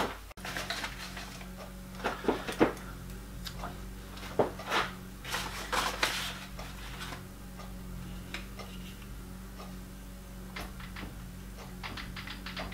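Scattered light clicks and taps of a steel rule and fingers against a lathe's parting tool and workpiece while the tool is set for the next cut, over a steady low electrical hum. The clicks are thickest between about two and seven seconds in, with a few more ticks near the end.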